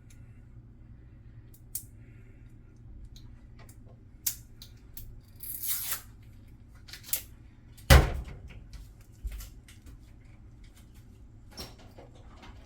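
Kitchen prep handling sounds: scattered clicks and taps, a rustling swish a little before six seconds in, and one loud knock about eight seconds in.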